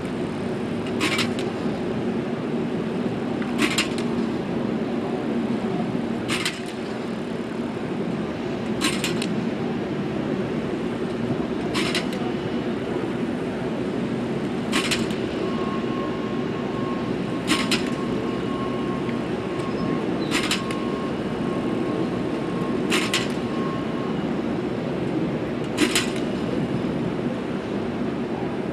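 Jugs passing machine drill with footballs: a sharp smack about every three seconds, ten in all, over a steady low hum.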